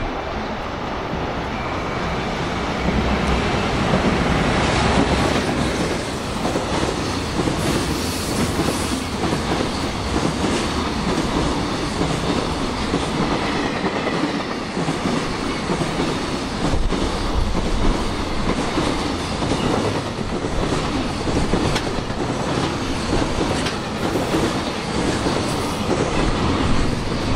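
Container freight train rolling past at close range, its wagon wheels clicking steadily over the rail joints.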